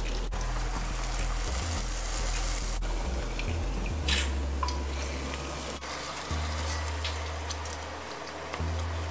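Salt bake dough frying in a pot of hot oil, a steady sizzle and bubbling, with a few light knocks of a wooden spatula and a metal skimmer against the aluminium pot.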